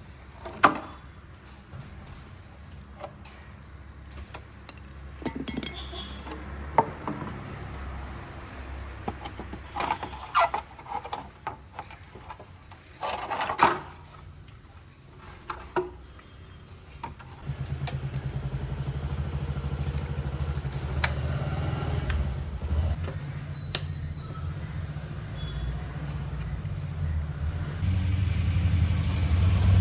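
Scattered metal clinks and knocks. About 17 seconds in, a Hero Honda Splendor's single-cylinder four-stroke engine starts and runs steadily, getting louder near the end.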